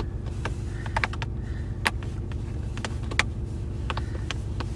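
Scattered short clicks and knocks of parts being handled and refitted on a truck's column shifter, over the steady low rumble of the truck idling.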